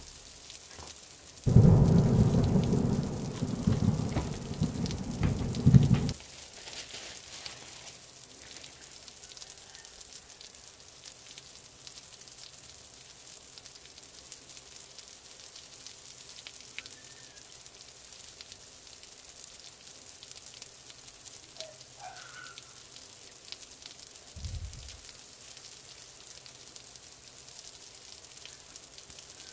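Handling noise from unboxing sneakers: a cardboard shoebox being opened makes a loud, low rustling scrape for a few seconds near the start. After that comes faint crinkling and rustling of tissue paper as the shoe is lifted and turned, with a soft thump near the end.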